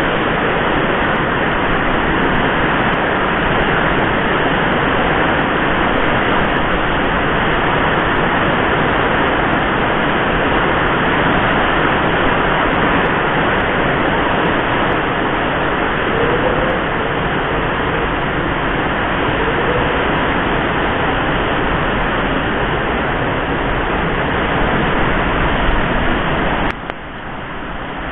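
Typhoon wind and heavy rain: a loud, steady rushing noise. It drops suddenly in level near the end.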